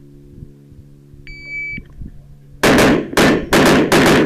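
A shot timer gives a short high beep, the start signal, and about a second later a pistol fires a rapid string of shots, about three a second.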